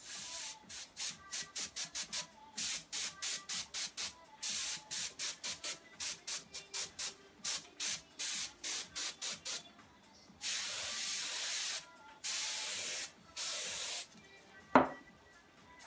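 Can of compressed air hissing through its straw nozzle in quick short puffs, about three a second, for roughly ten seconds, then in three longer blasts. A sharp knock comes near the end.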